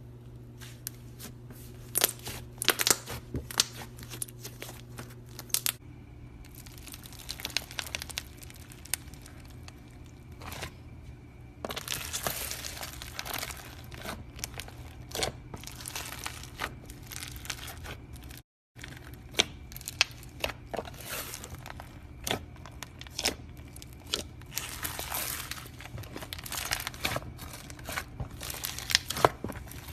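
Slime being squished and stretched by hand: irregular sticky clicks, pops and crackles, with stretches of dense crinkly crackling.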